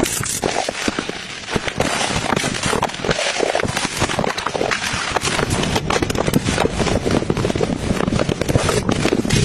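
A dry scourer sponge being ripped apart, giving a dense, continuous crackling made of many quick clicks.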